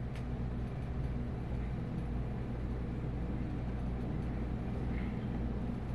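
A steady low droning hum with no clear events, from the horror short film's soundtrack ambience.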